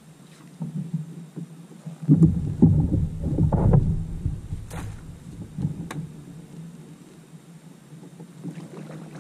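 Low rumbling and knocking from handling aboard a kayak, loudest for about two seconds near the middle, with a couple of sharp clicks after it over a steady low hum.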